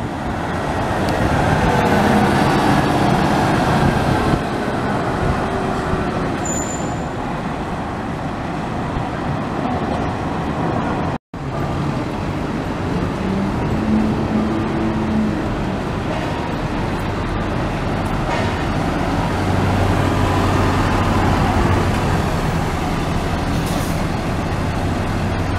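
Hino Selega diesel coaches in street traffic: first one pulls away with its engine running and a whine falling in pitch over the first few seconds; after a break about eleven seconds in, an older Hino Selega coach drives up and passes with a steady low engine drone.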